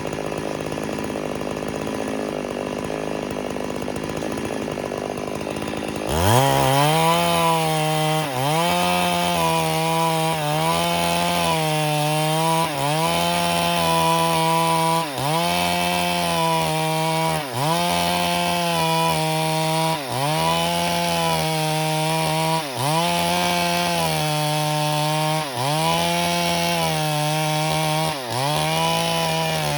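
Stihl MS382 two-stroke chainsaw at low speed for about six seconds, then throttled up sharply to full revs and cutting along the grain of dead wood. Its pitch sags briefly about every two and a half seconds as the chain loads up in the cut, then recovers.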